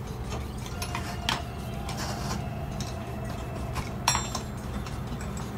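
Metal hand tools and steel electrical fittings clinking and clicking on a wooden worktable as they are handled, with the sharpest clink about four seconds in; a steady low hum underneath.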